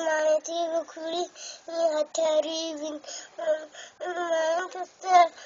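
A young child singing in short phrases, each note held level, with brief breaks between them.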